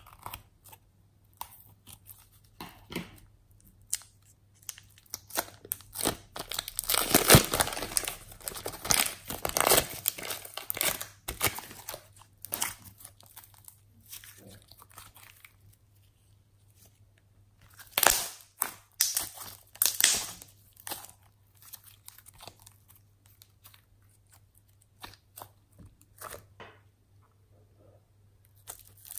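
White slime being squeezed from a plastic piping bag and stretched by hand, making bursts of sticky clicks and crackles. It is loudest from about a quarter of the way in and again about two-thirds through.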